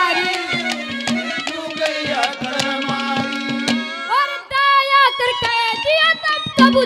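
Live Haryanvi ragini music: tabla strokes beating steadily under a held melody, and in the second half a boy's high voice holding long, wavering notes.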